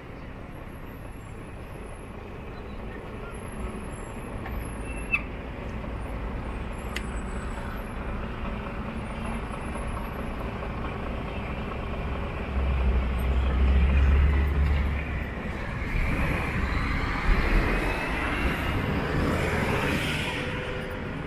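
Road traffic at a city intersection: steady noise of vehicles passing. A heavy vehicle's deep rumble swells and fades about halfway through, and another vehicle passes with rising and falling tyre and engine noise near the end.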